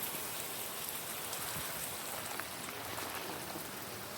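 Heavy rain from a hurricane rain band pouring steadily: a dense, even hiss with scattered sharp drop ticks.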